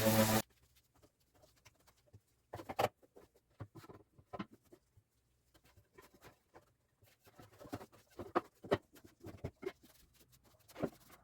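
Background music cuts off half a second in, followed by scattered light clicks, taps and knocks of small hard objects being handled, the loudest knocks about three seconds in and near the end.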